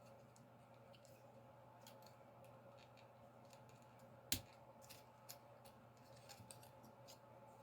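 Faint clicks and taps of a plastic Transformers Beast Wars Cheetor figure being handled as its arms and joints are moved, with one sharper click about four seconds in. A faint steady hum runs underneath.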